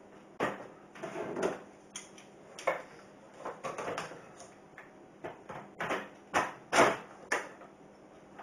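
Irregular knocks, clicks and scrapes of heavy-duty plugs, coupler and flex being handled and laid out for connection.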